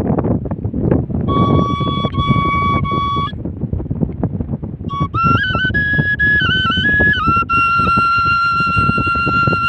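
A flute plays a folk melody in two phrases of high held notes with quick ornamental turns, the first short and the second longer. A constant rough noise runs underneath.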